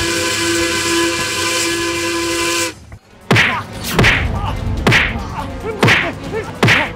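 Steam train whistle blast with heavy hiss, a chord of steady tones held for nearly three seconds and then cut off. Then five sharp whooshing swipe hits, about one a second.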